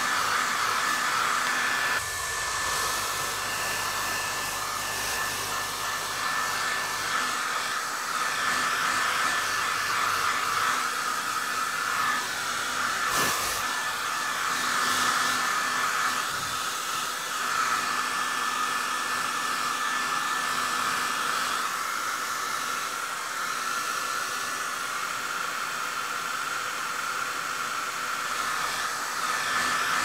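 Hair dryer running steadily: a constant rush of blown air with a thin high motor whine over it.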